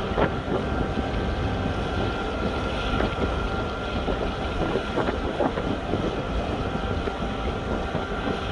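A ship's crane hoist runs with a low rumble and a steady whine as it lowers a slung forklift on its hook. A few sharp clanks break in, about four times.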